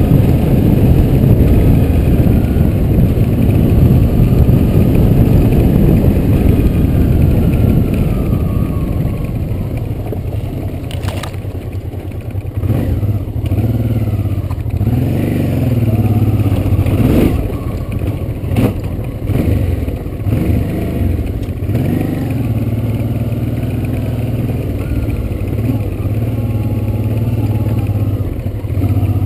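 Honda Transalp's V-twin engine running as the bike rides a dirt track, its pitch rising and falling with the throttle through the middle, with several knocks and rattles from the bike going over bumps.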